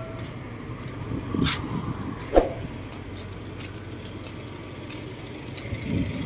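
Outdoor street background: a steady low rumble of an open road with cars, with one sharp knock about two and a half seconds in.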